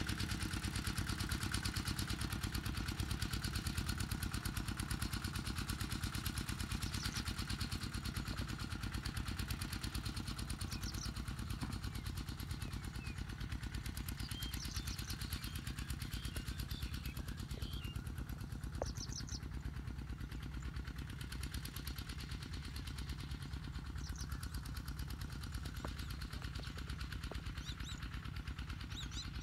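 Kubota tractor's diesel engine running steadily with a fast, even firing beat, easing slightly in loudness about halfway through.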